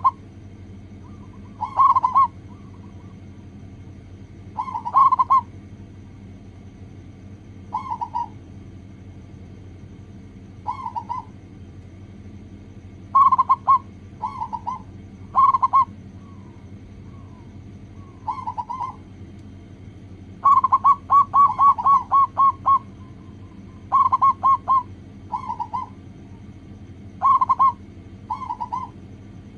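Zebra dove (perkutut) cooing: short bursts of quick, rolling coos repeated every second or two, with a longer run of about a dozen notes about two-thirds of the way through. A steady low hum runs underneath.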